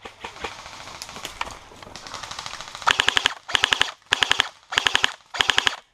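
Airsoft electric gun (SRC AKS-74U) firing five short full-auto bursts, starting about halfway through, each a quick rattle of shots well under half a second long.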